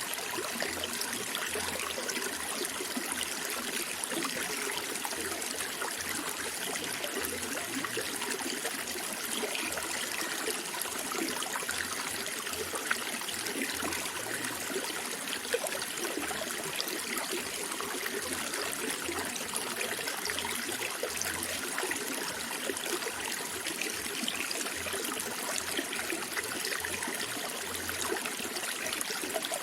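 Running water trickling and flowing steadily, as from a small stream.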